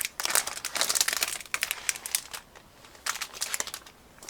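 Plastic packaging of a squishy toy crinkling as it is handled and opened, in several quick bursts with short pauses, dying down near the end.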